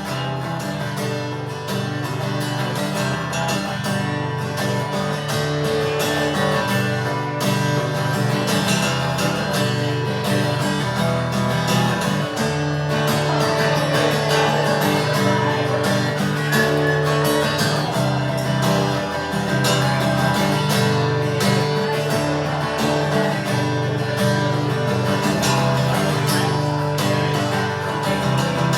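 Live acoustic guitar strummed steadily through an instrumental break between verses of a country-style song.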